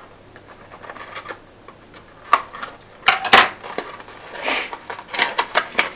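Scissors snipping through packaging and being set down with a clatter on a wooden desk, amid handling of cardboard and plastic packaging: a run of sharp clicks and small knocks, loudest about three seconds in.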